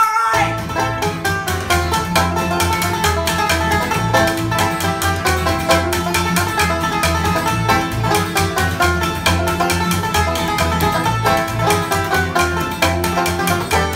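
Banjo, acoustic guitar and double bass playing together in bluegrass style: rapid picked banjo notes over strummed guitar chords and a plucked bass line.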